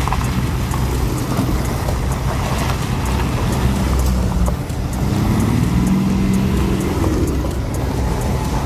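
Engines of several motor trikes running as a line of them rolls slowly past one after another. About five seconds in, a closer engine's note rises as it pulls by.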